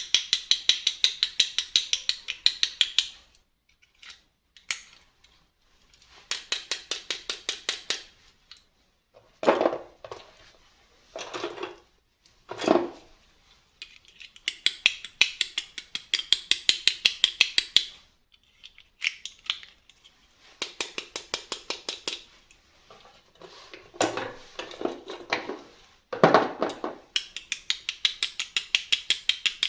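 Runs of rapid, evenly spaced clicking, about eight clicks a second, each run lasting a few seconds, with a few duller handling knocks between the runs.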